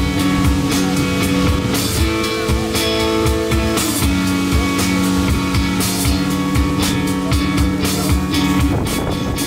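Live electric guitar and drum kit playing an instrumental rock passage: held guitar chords that change every two seconds or so over a steady beat of drum and cymbal hits.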